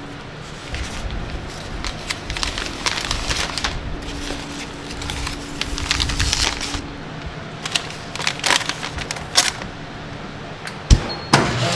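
Clear plastic vacuum bag crinkling and rustling as a tray of sliced salmon is slid into it and handled, with scattered taps. Near the end a single sharp knock, and a chamber vacuum sealer's pump starts running steadily.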